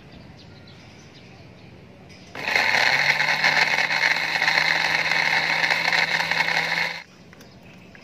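Small personal blender motor running at a steady pitch, grinding chilies and other spice ingredients with a little water into a smooth spice paste. It starts abruptly about two seconds in, runs for about four and a half seconds, and cuts off suddenly.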